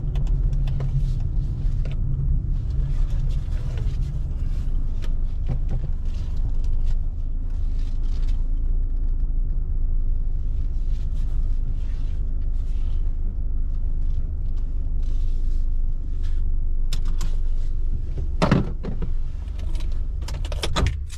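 Car driving on the road, heard from inside the cabin: a steady low rumble of engine and tyres. A couple of short knocks come near the end.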